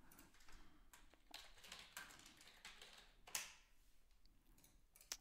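Faint typing on a computer keyboard: scattered soft keystrokes, with one sharper, louder tap a little over three seconds in.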